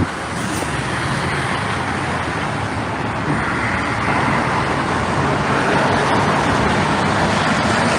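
Road traffic noise, a car going by, growing slightly louder midway through.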